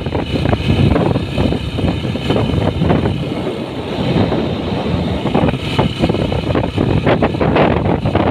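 Yamaha motorcycle engine running at steady road speed, with wind buffeting the microphone in gusts.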